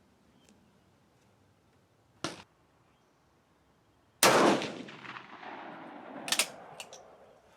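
A single shot from a Swiss K31 rifle in 7.5x55mm Swiss, about four seconds in, with a long echoing tail. A short click comes before it, and a couple of sharp metallic clicks follow about two seconds later.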